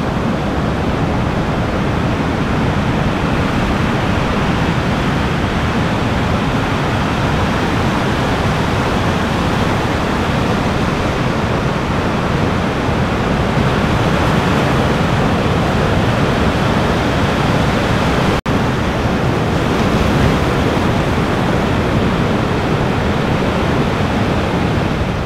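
Ocean surf rushing in a continuous, even wash, broken off for an instant about two-thirds of the way through.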